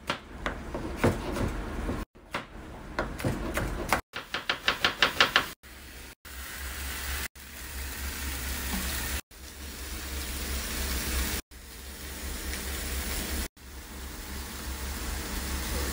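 Knife chopping tomatoes on a plastic cutting board, with sharp knocks and then a quick run of even chops at about six a second. After that, short cut-up stretches of steady hissing kitchen noise with a low hum, while vegetables are tossed and seasoned in a steel pan.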